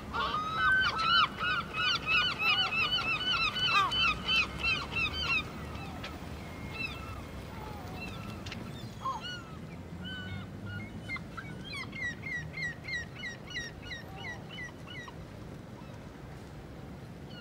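Gulls calling: a fast run of loud, arched cries, several a second, for the first five seconds or so, then scattered single calls and a second, fainter run of cries from about eleven to fifteen seconds. A low steady rumble lies underneath.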